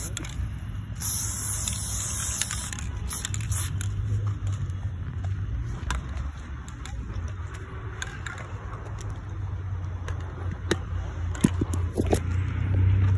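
Aerosol spray paint can hissing in one short burst about a second in, then a steady low rumble with scattered clicks and scrapes.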